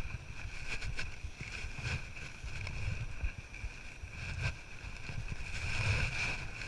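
Wind rumbling and buffeting on the microphone, swelling and dropping, with a few light clicks and a steady high-pitched hum underneath.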